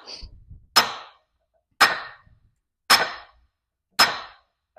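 Steady hammer blows driving the back bearing race into a John Deere 4230 Syncro-Range transmission: four sharp metallic strikes about a second apart, each ringing briefly.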